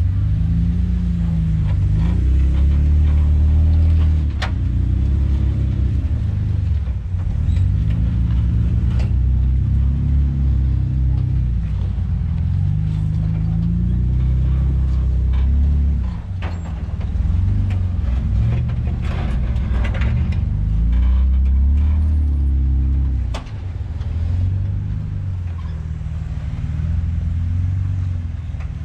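An off-road vehicle's engine working through a rock-crawling section, its revs rising and falling again and again as the throttle is fed in and eased off. There are occasional sharp knocks.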